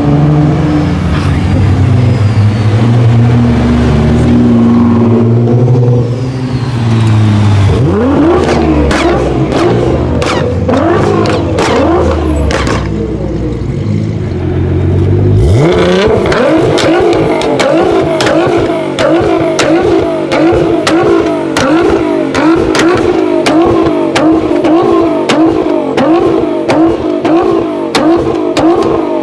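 Tuned 700 hp Nissan GT-R R35's twin-turbo V6 being revved hard, with loud exhaust pops and bangs. It runs low at first, then rises in repeated sweeps. About halfway through the revs climb sharply and then bounce rapidly up and down, with a string of sharp cracks from the exhaust.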